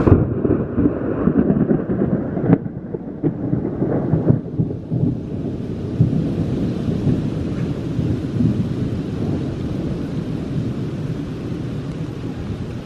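A thunderclap right at the start, then thunder rumbling and crackling with a few sharp cracks for about five seconds before slowly dying away, leaving steady rain hiss.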